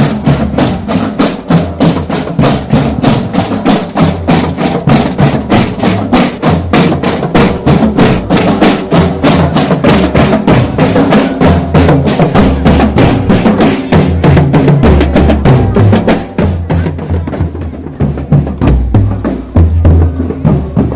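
School marching drum band playing a fast, steady beat on snare drums and bass drums. About three quarters of the way through, the crisp high strokes drop away and the deep bass drums carry on.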